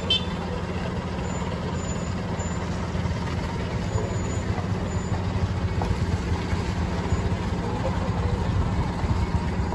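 A heavy vehicle's engine running steadily, a continuous low drone.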